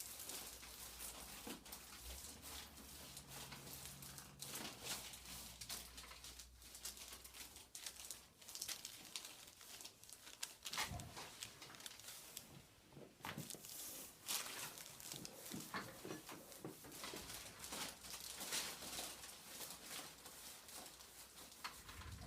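Faint rustling and crinkling with scattered small clicks, from hands and a body moving against clothing and a treatment table during a hands-on chiropractic session.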